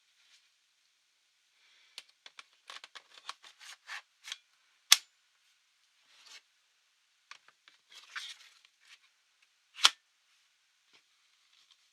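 Small clicks and light rattles of hands working on a laptop's case and parts, with two sharp snaps, about five and ten seconds in.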